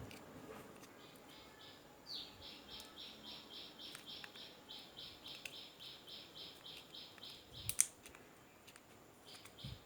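A faint, high-pitched animal call repeating in an even, fast pulse of about four a second, heard from the surroundings; a sharp click sounds about three-quarters of the way through.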